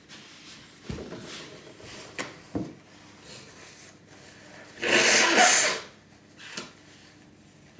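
A person blows their nose hard into toilet paper, one long blow about five seconds in followed by a short sniff. Before it, toilet paper rustles and a few light knocks sound as the roll is handled and set down on a table.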